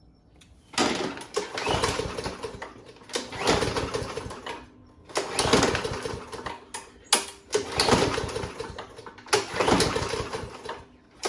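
Craftsman M100 push mower's 140 cc engine being pull-started about five times in a row, each pull cranking it for a second or two without it catching. The engine is not getting fuel, which the owner puts down to clogged jets in the carburetor.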